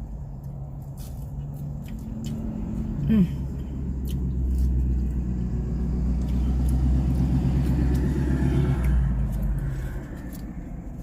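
A car engine's rumble close by, swelling from about four seconds in and falling away about nine seconds in, as a vehicle moves through the lot. A brief hummed voice sound about three seconds in and a few small clicks.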